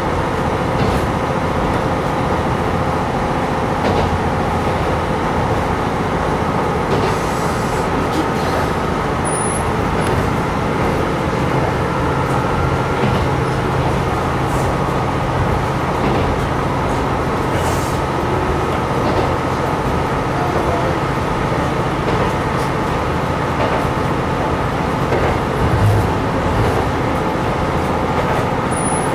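Diesel railcar running along the line, a steady engine drone with wheel and rail noise, heard from inside the car, with occasional faint clicks.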